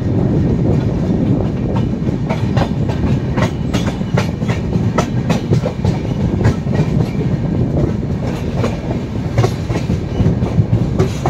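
Moving Indian Railways passenger train heard from an open coach doorway: a steady low rumble of running wheels, with sharp, uneven clacks of the wheels passing over rail joints.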